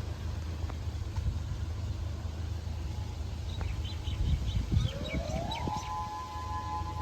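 A tsunami warning siren winds up about five seconds in, its pitch rising and then holding as a steady two-note tone, over a low rumble. A few short high chirps, like birds, come just before it.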